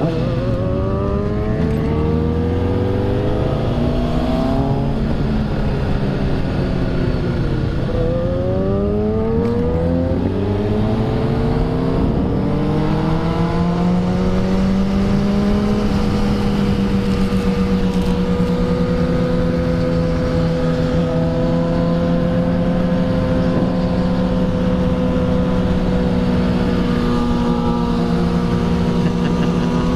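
Motorcycle engine with a remapped ECU, very loud, accelerating through the gears: the pitch climbs and drops back at each of three shifts. It then holds a steady cruising pitch, and climbs again near the end.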